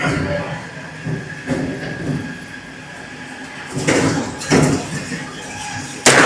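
Semi-automatic rifle shots in a shooting range: two duller bangs about four seconds in, then a sharp, loud shot near the end with an echoing tail.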